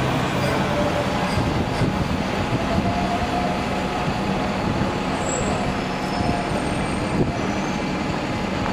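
Manchester Metrolink Bombardier M5000 street tram running along its street track and drawing away, over steady city-street traffic noise.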